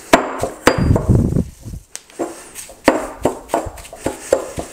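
Stone pestle pounding and grinding tinned sardines, garlic and fennel seeds into a paste in a granite mortar: a run of irregular knocks, about a dozen.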